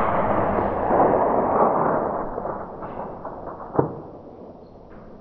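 Echo of a .260 Remington rifle shot rolling back off the mountainside and slowly fading away, with a single sharp knock near four seconds in.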